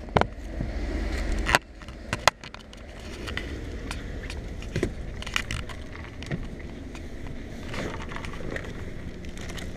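Fishing rods and gear being handled and loaded at a car's open rear door: a low rubbing rumble for about the first second and a half, cut off by a sharp knock, two more sharp clicks just after, then scattered light clicks and rattles.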